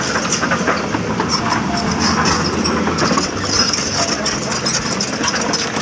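Volvo excavator's diesel engine running steadily, a continuous loud mechanical rumble.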